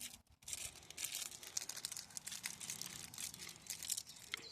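Foil booster-pack wrapper crinkling and tearing as it is opened by hand: a quick, irregular run of small crackles.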